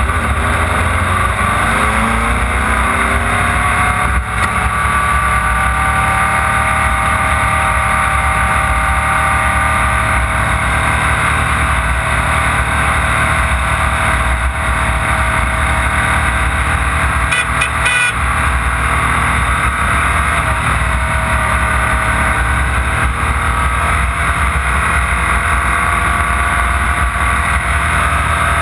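Off-road race vehicle's engine running hard, its pitch dropping over the first couple of seconds and then holding steady at high revs over a constant rushing noise. A few brief clicks come about two-thirds of the way in.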